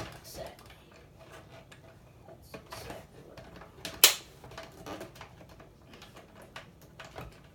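Small plastic clicks and knocks from handling a Nerf Rival toy blaster and its parts, with one loud, sharp snap about four seconds in.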